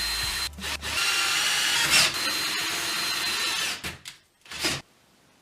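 Electric drill running with a steady whine as it bores a hole at a center-punched mark. It dips briefly about half a second in, stops about four seconds in, and gives one short burst near the end.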